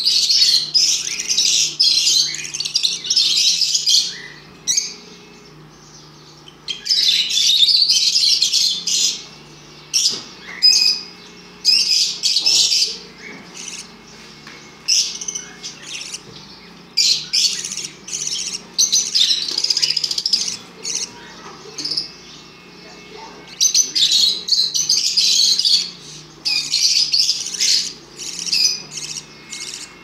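Budgerigar chick chirping in rapid, high-pitched bouts of one to several seconds with short pauses between: the begging calls of a chick being hand-fed from a syringe.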